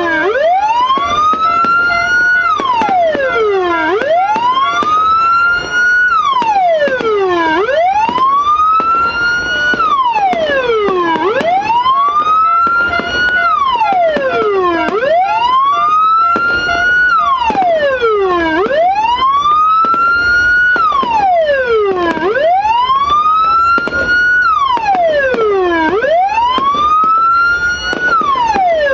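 Electronic police-escort siren module sounding through a TOA horn speaker in a steady wail. Each cycle rises from a low pitch to a high one, levels off briefly, then slides back down, repeating about every three and a half seconds.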